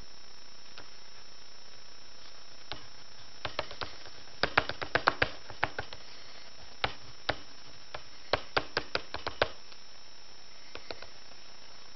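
Sharp taps and clicks in irregular clusters, starting about three seconds in and stopping after about six and a half seconds, over a steady hiss: a small white drawing stick tapping and working against a sketchbook page.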